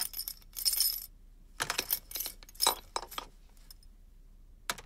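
Someone rummaging through small hard objects, giving short bursts of clinking and rattling four times, the last a single sharp click near the end: a search for a first-aid kit.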